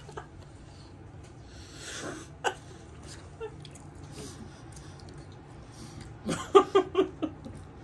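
A man's laughter: a breathy exhale about two seconds in, then a quick run of short giggling bursts near the end. A single light tap sounds in between.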